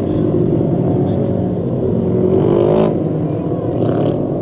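Several micro midget race car engines running together. One rises in pitch as it accelerates, loudest just under three seconds in, then drops away.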